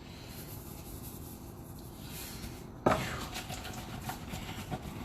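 Kitchen handling sounds while a bowl of potato wedges is being seasoned: a soft rubbing hiss, then a sharp knock a little past halfway, followed by light rustling and small clicks.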